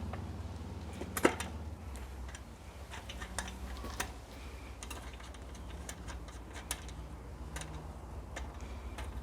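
Scattered light clicks and taps of metal parts being handled as a small bicycle's wheel is worked back into the frame, with one sharper knock about a second in, over a steady low hum.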